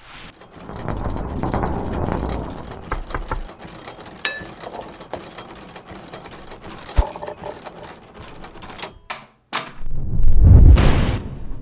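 Mechanical machinery sound effects: a rumble with rapid clattering and scattered sharp clicks. Near the end come two sharp clicks and then a loud low rumble that swells up and dies away.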